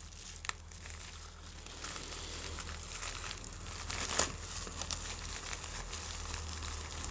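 Packaging being handled and worked open by hand, crinkling and rustling, with a couple of sharper clicks, about half a second in and about four seconds in.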